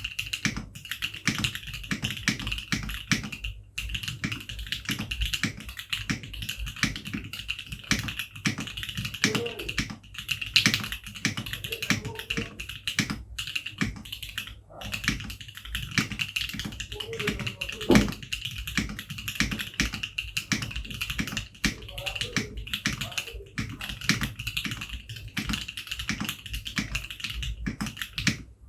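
Fast, continuous typing on a Sangeo65 custom mechanical keyboard with an aluminium plate, a brass weight and Gateron Caps Gold V2 linear switches, with lubed Owlab stabilizers: a dense run of clacky keystrokes.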